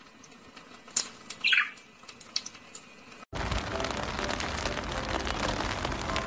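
A small pet gives one short, high, falling chirp among a few faint clicks. The sound then cuts abruptly to a loud, even noise that runs on.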